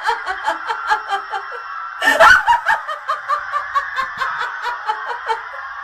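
A woman's long, gleeful villain laugh, a rapid staccato "ha-ha-ha" of about six bursts a second, with a loud sudden burst about two seconds in. The laugh trails off near the end.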